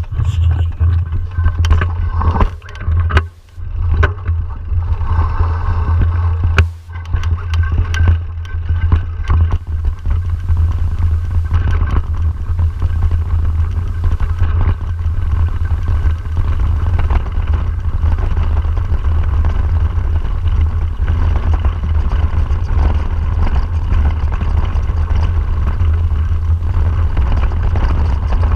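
Wind buffeting a handlebar-mounted camera's microphone, with the low rumble of a mountain bike's tyres and the clatter of the bike rolling down a rough grassy singletrack. Sharp knocks and rattles come often in the first several seconds.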